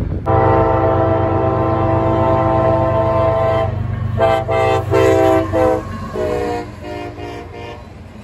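Diesel locomotive air horn sounding one long blast of about three seconds, then a run of shorter blasts. The pitch drops slightly about six seconds in as the locomotive passes, and the horn fades toward the end.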